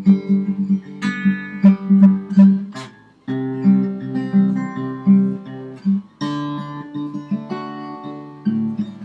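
Acoustic guitar playing the song's instrumental break, strummed chords mixed with picked notes, with a brief pause about three seconds in.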